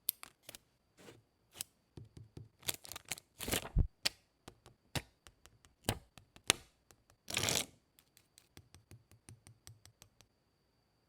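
Paper being handled on a desk: scattered light taps and clicks, with two brief rustling swipes, one about three and a half seconds in and one about seven and a half seconds in, then a run of quick faint ticks.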